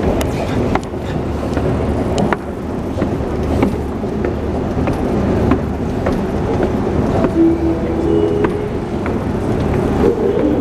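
Metro escalator running with a steady rumble, with footsteps knocking on its metal steps about once or twice a second.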